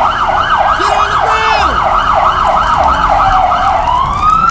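Emergency vehicle siren in a fast yelp, its pitch swinging up and down about three times a second; near the end it changes to a slow rising wail.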